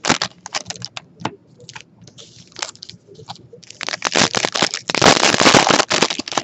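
Foil wrapper of a Topps Stadium Club baseball card pack crinkling and crackling as it is torn open and the cards are slid out. The crackling is sparse at first and densest and loudest from about four to six seconds in.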